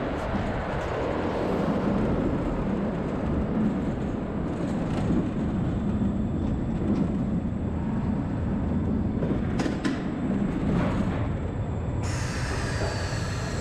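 Steel roller coaster train rolling along its track, a steady rumble with a few sharp clacks. About twelve seconds in it enters the brake run and a higher hiss with a falling whine joins in.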